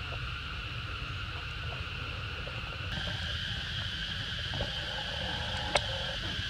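Steady, even high drone of insects in the surrounding forest, growing a little louder about halfway through, over a low rumble. A single sharp click sounds near the end.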